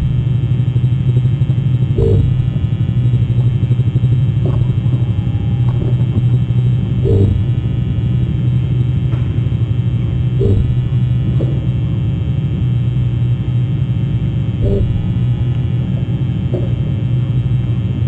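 Steady low electrical hum with a few separate knocks, spaced a few seconds apart.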